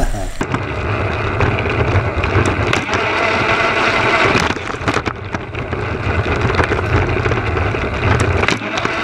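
Battery-powered TrackMaster toy train motor running steadily, heard close up from a camera riding along the plastic track, with a few sharp clicks along the way.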